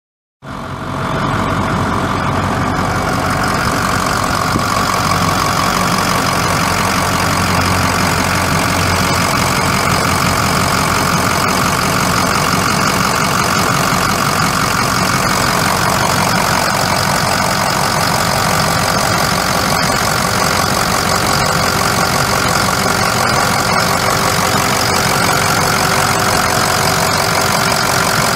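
2005 Ford F550 Super Duty's 6.0-litre V8 turbo diesel idling steadily, coming in abruptly about half a second in.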